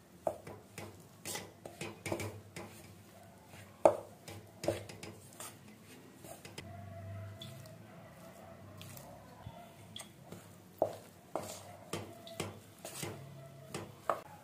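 Steel spoon clinking and scraping against a stainless steel bowl while stirring flour and water into a crumbly dough, in irregular sharp knocks, the loudest about four seconds in.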